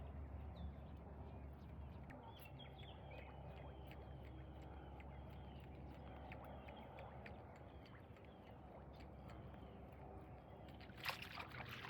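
Faint outdoor ambience: a bird calling in a quick series of short chirps over a low, steady rumble. A few sharp clicks come near the end.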